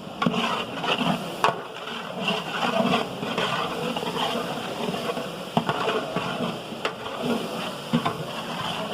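Cooking in a large pot: a ladle stirring the spice mixture, with scattered knocks and clinks against the pot.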